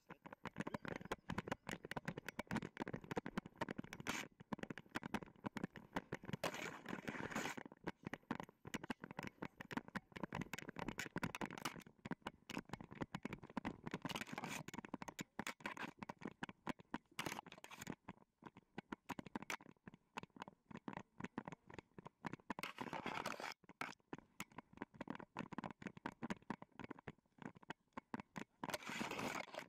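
Continuous rapid scratching and rustling from a camera harnessed to a dog's back as the dog tracks through snow and dry grass: fur and harness rubbing on the camera, dry stems brushing past it, and paws in the snow. A few stretches are louder where the dog pushes through denser brush.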